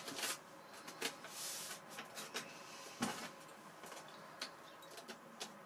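Faint clicks and light scraping of small parts being handled: pliers working a wire pushrod's Z-bend into a plastic servo horn, with one sharper click about three seconds in.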